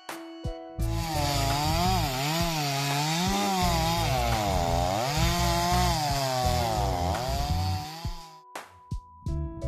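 Chainsaw running at high revs, its pitch repeatedly dipping and recovering as it loads up in the cut, starting about a second in and stopping near the end. Background music with a beat plays under it.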